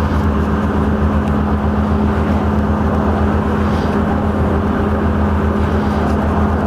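A large engine running steadily: a constant deep drone with a steady hum over it, not changing in pitch or level.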